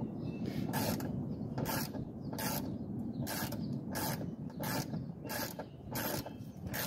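Socket ratchet clicking in short bursts, a little under a second apart, as the window regulator's 10 mm mounting nuts are tightened.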